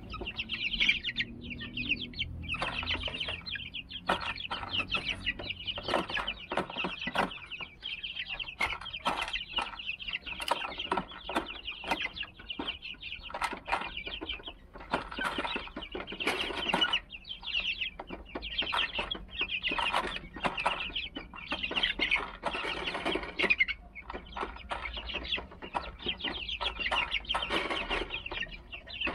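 A flock of 38-day-old Silver Laced Wyandotte chicks peeping and cheeping continuously. Frequent short sharp taps and scuffs run under the calls, fitting the chicks scratching and pecking at the gravel floor.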